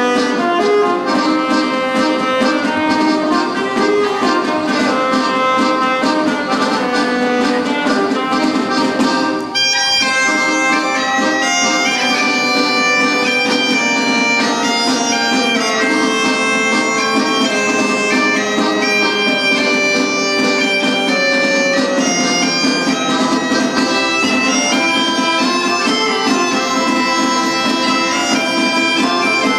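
Live folk band playing a pasodoble on Galician bagpipe (gaita), alto saxophone, accordion and drum, with the gaita's steady drone underneath. The drum beat stands out in the first part. About ten seconds in there is a brief dip, then the tune carries on with longer held melody notes.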